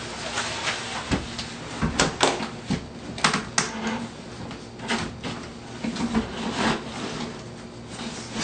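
Shower base being lowered and shifted into place on the subfloor: irregular knocks, clicks and scrapes as it is set down and nudged to line its drain up with the pipe.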